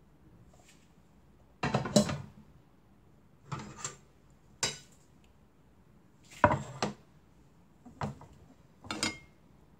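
Dishes and kitchen utensils clinking and knocking against each other in six short clatters with quiet gaps between them.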